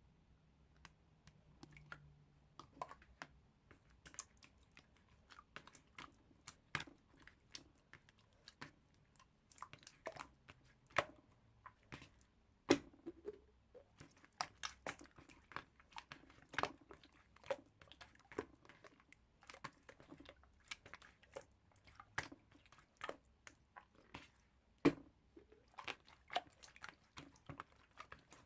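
Close-up string of small, irregular clicks and crunchy crackles, several a second, with a few louder snaps.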